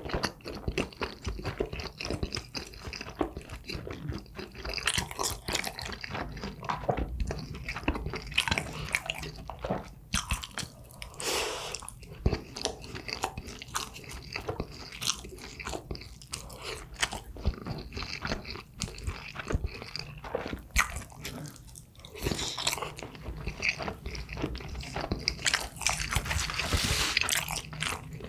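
A person biting and chewing food close to the microphone, a steady run of many small crunches and mouth clicks, mouthful after mouthful.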